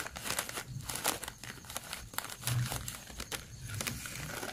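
Thin plastic bag crinkling and rustling in irregular crackles as a measuring spoon is worked inside it, scooping granulated sugar.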